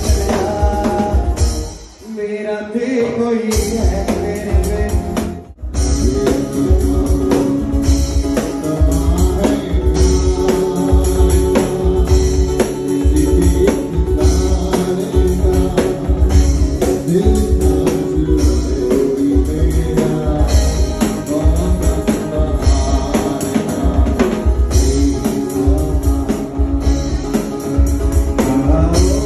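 A live band playing: a singer with an acoustic guitar over a drum kit and percussion. The drums drop out for a moment a couple of seconds in, and then a steady beat runs on.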